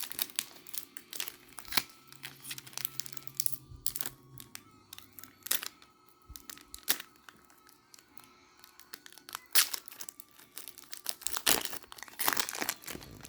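Foil Pokémon booster pack wrapper crinkling and cards being handled, a run of irregular sharp crackles and clicks.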